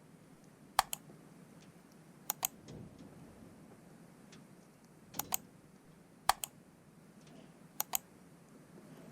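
Sharp clicks in quick pairs, five pairs spread irregularly over a quiet background.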